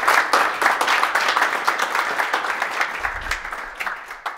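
Audience applauding: many hands clapping together, thinning out and fading near the end.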